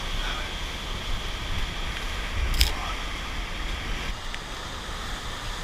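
Hurricane-force wind buffeting the microphone with a steady low rumble, over the wash of surf. There is one sharp knock about two and a half seconds in.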